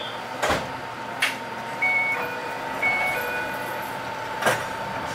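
Sounds in the cab of a stopped Enoshima Electric Railway train: a steady tone underneath, a two-note electronic beep sounding twice about two to three seconds in, and a few sharp knocks about half a second, one second and four and a half seconds in.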